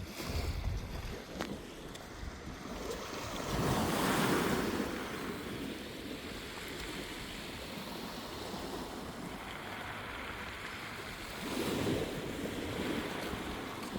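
Sea waves washing and lapping, with wind buffeting the microphone. Two bigger surges of water come about four seconds in and again near the end.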